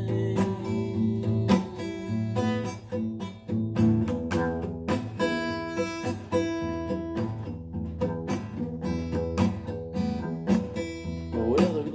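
Acoustic guitar strummed in steady repeated chords, an instrumental passage with no singing.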